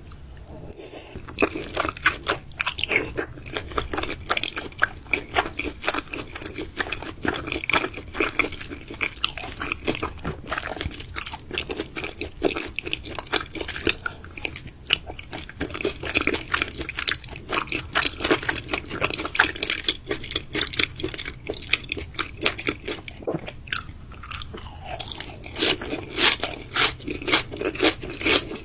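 A person biting and chewing raw meat, a fast, continuous run of crunchy mouth sounds, with a brief lull a few seconds before the end.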